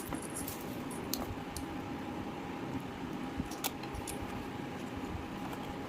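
A small cardboard product box being opened and its contents handled: scattered light clicks and taps, most of them in the first second and a half and one more about three and a half seconds in, over a steady background hiss.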